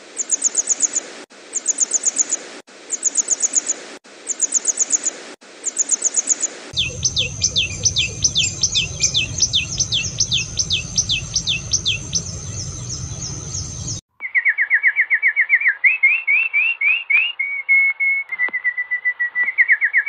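Three birdsong recordings in turn. First, a small bird gives five short bursts of very rapid, high trilled notes. Next, a common tailorbird calls in a fast run of sharp rising notes over a low rumble, and about 14 s in a yellow finch takes over with a fast trill that steps up and down in pitch.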